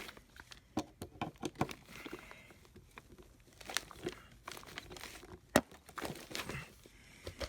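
Irregular crinkling and rustling of handled material, broken by scattered small clicks and knocks, one sharper knock about two thirds of the way through.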